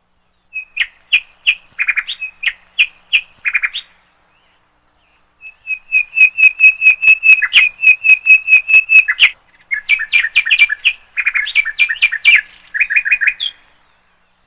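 Bird chirping: short, high chirps. A loose series comes first, then a pause of about a second and a half, then a fast, even run of about five chirps a second, then clusters of chirps that stop about a second before the end.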